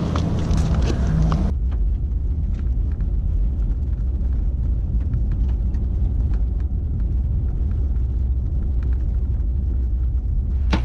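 Vehicle driving: a steady low engine and road rumble, after a short stretch of broader noise that ends abruptly about a second and a half in.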